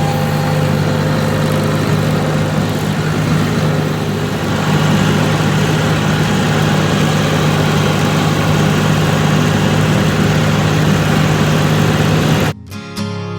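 Engine of a piece of farm machinery running steadily at constant speed. It cuts off abruptly near the end.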